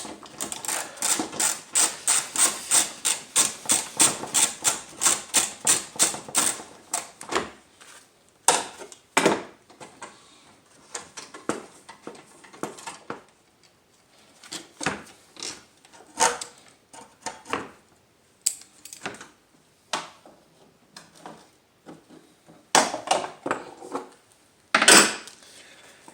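3/8-inch ratchet wrench clicking in a fast, even run, about four clicks a second for some seven seconds, as a 10 mm bolt on the hood latch is turned out. After that come scattered single clicks and knocks of the tool and metal parts.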